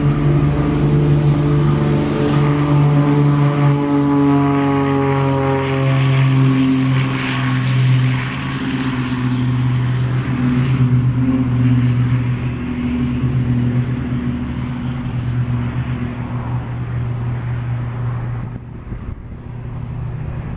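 Piper Seneca's twin piston engines and propellers at full takeoff power as it rolls down the runway and climbs out, a steady drone that fades as it climbs away near the end.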